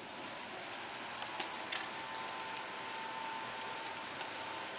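Dry autumn leaves rustling and pattering down in a breeze, a steady rain-like hiss with a couple of light ticks about a second and a half in.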